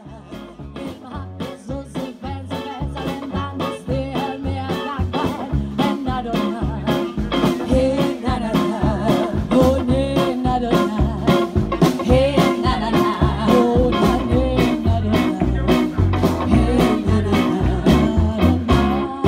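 A live band plays an upbeat number with a steady drum beat: female singers with saxophone, upright double bass and drum kit. The music fades in over the first few seconds.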